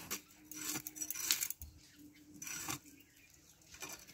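Blade scraping and cutting through a tilapia, in four or so short, uneven strokes.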